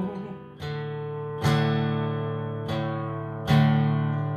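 Acoustic guitar strummed, four chords each ringing out and fading before the next strum.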